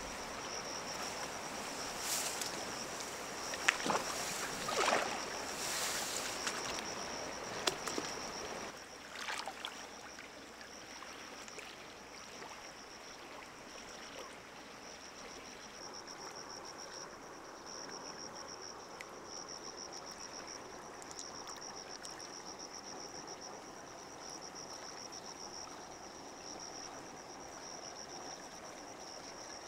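Steady water noise, with several sharp splashes or knocks in the first nine seconds, then quieter. A thin, faintly pulsing high tone runs underneath.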